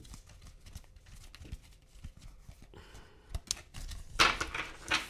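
Tarot cards being handled and shuffled: soft clicks and taps of the cards, then a denser rustle of shuffling about four seconds in.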